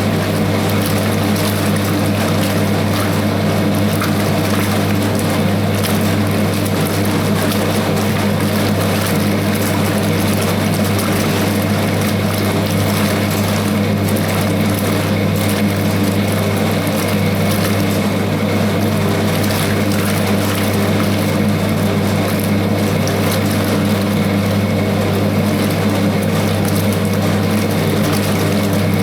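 Hoover 0321 wringer washing machine running, its electric motor humming steadily while water churns in the tub.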